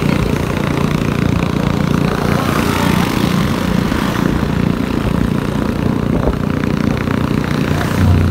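Steady rumble of wind buffeting the microphone mixed with engine and road noise from riding a motorcycle, with cars passing close alongside. A brief louder low rumble comes near the end.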